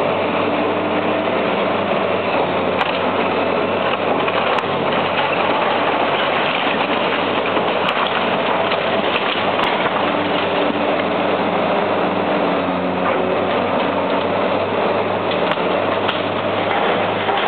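Liebherr 944B long-reach demolition excavator running steadily, its diesel engine humming under the hydraulics, with a continuous crackle of brickwork being broken away at the top of the building.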